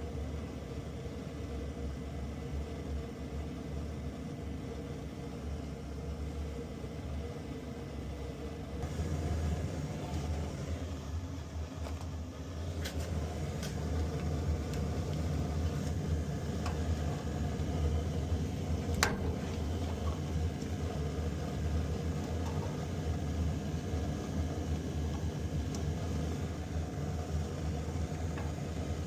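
Propane Amana furnace running just after start-up: a steady low motor hum, joined about nine seconds in by a louder rushing sound, with a few sharp clicks, the strongest about nineteen seconds in.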